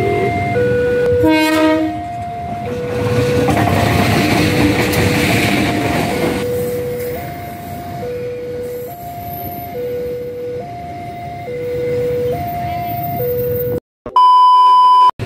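Level-crossing warning alarm repeating a two-tone signal, alternating between a higher and a lower pitch. A train horn sounds briefly about a second in, and a passenger train rumbles over the crossing for a few seconds after. Near the end the sound cuts out and a loud steady test-tone beep takes over.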